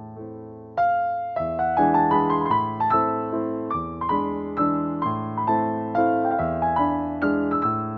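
Background piano music: a gentle melody of struck notes, each fading before the next, with a fuller phrase starting about a second in.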